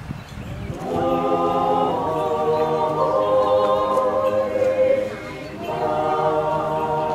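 Choir singing Orthodox liturgical chant a cappella in held, harmonised phrases. A new phrase begins about a second in, and there is a short break for breath around five and a half seconds before the singing resumes.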